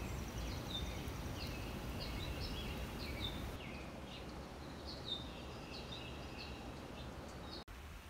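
Wild songbirds singing: repeated short, high chirps and trills over a steady low background noise. The sound drops out for an instant near the end.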